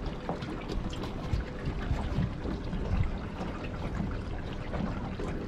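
Water trickling and lapping, with scattered small knocks and clicks.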